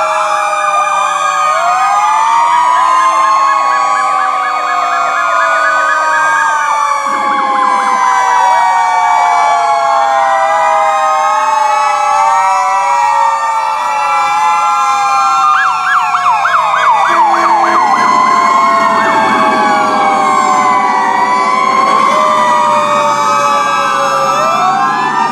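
Sirens of many fire trucks and emergency vehicles sounding at once, their rising and falling wails overlapping, with a fast yelp cutting in a little past halfway.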